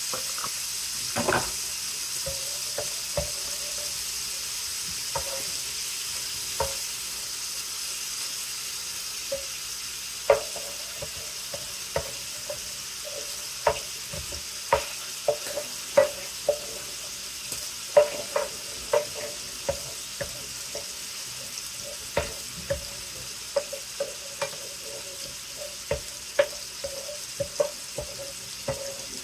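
Beaten egg frying with a steady sizzle in an electric skillet, stirred with a long black spoon that scrapes and taps against the pan. The taps come more often in the second half.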